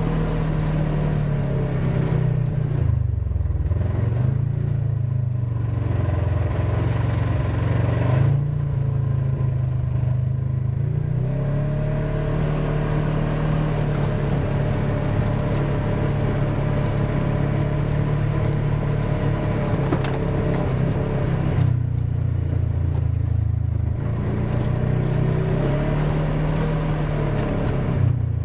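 Polaris RZR 1000 side-by-side's engine running under way, recorded on board. The engine note drops about three seconds in and climbs back, then drops and rises again a few seconds from the end as the throttle changes.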